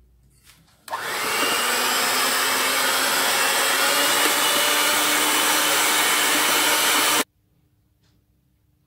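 Hand-held electric beater running in a steel bowl of thick cake batter: a steady motor whir with a hum, starting about a second in and cutting off abruptly near the end.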